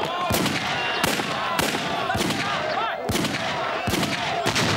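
A string of about seven gunshots, irregularly spaced half a second to a second apart, with men shouting between them.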